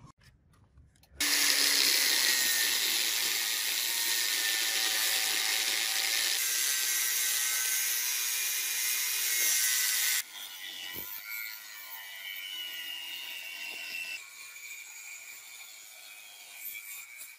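Angle grinder with a thin cut-off disc cutting through a metal pipe clamped in a vise. It starts suddenly about a second in, runs loud and steady with a whine, then drops abruptly to a quieter grinding about ten seconds in.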